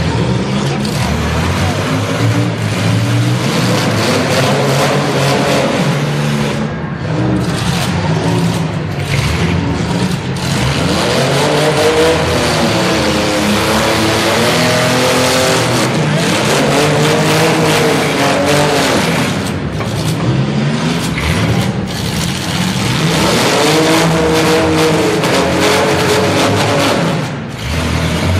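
Engines of compact demolition-derby cars revving hard. Their pitch climbs and drops over and over as the cars shove against each other.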